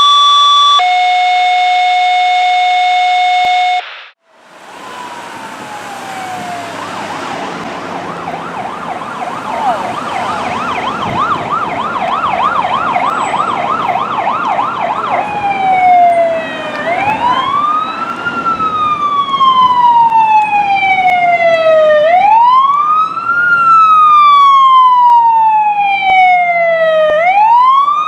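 An emergency vehicle's electronic siren approaching and growing louder, first on a fast yelp of about four sweeps a second, then switching about fifteen seconds in to a slow wail that rises quickly and falls slowly. It is preceded by a steady tone that changes pitch once and cuts off sharply about four seconds in.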